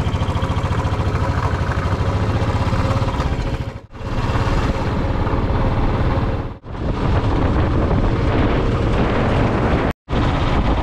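Motor vehicle on the move: engine running with steady road and wind noise. The sound drops away briefly twice and cuts out sharply for a moment near the end.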